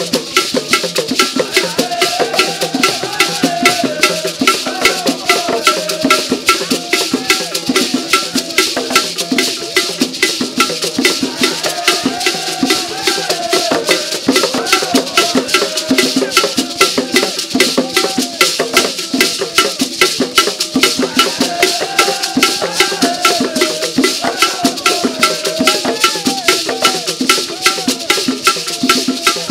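Ghanaian traditional drum ensemble: hand drums and gourd rattles playing a fast, steady, dense rhythm.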